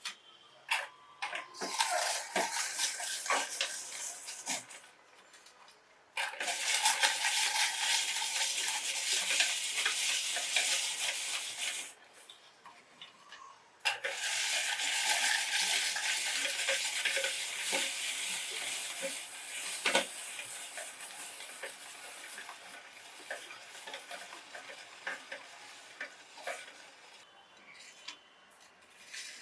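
Meat grinder crushing biscuits: dense crunching and crackling with sharp snaps, in three long spells separated by short pauses.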